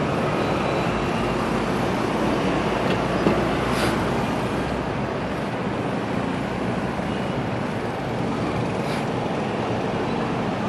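Steady road-traffic noise heard from a motorcycle riding in city traffic: engine and road rumble, with two brief hisses about four and nine seconds in.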